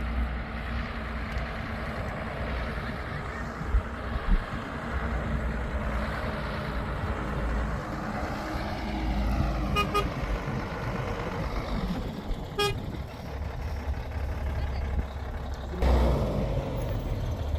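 A motor vehicle running with a steady low rumble and road noise, with a couple of brief short beeping tones around the middle.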